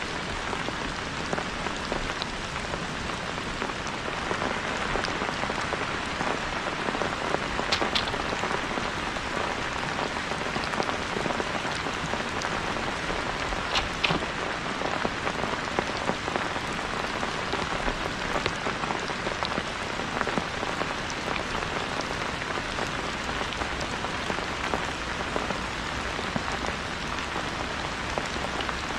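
Steady rain falling, a dense even patter of drops, with a few sharper drip taps standing out about eight and fourteen seconds in.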